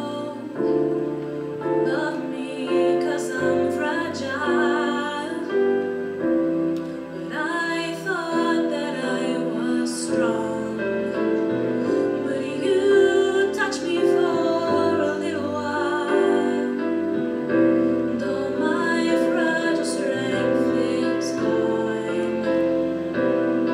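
A woman singing a ballad solo into a microphone, holding long notes, over piano accompaniment.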